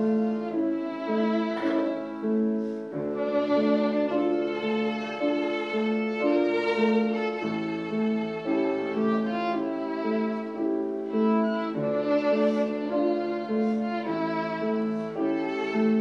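Violin playing a hymn melody in held, singing notes over a grand piano accompaniment that repeats chords underneath.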